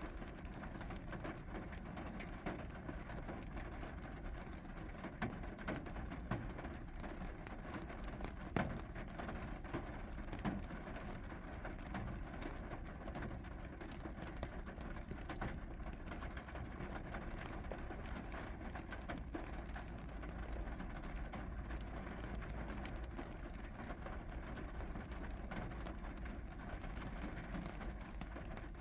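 Steady rainfall, a continuous hiss with scattered drops tapping on a surface, one sharper tap about eight seconds in, over a low steady rumble.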